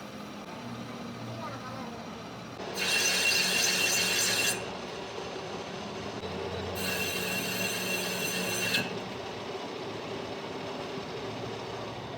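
Metal being worked by a power tool: two bursts of about two seconds each of loud, harsh, high-pitched noise with a ringing tone in it, over a steady workshop machine hum.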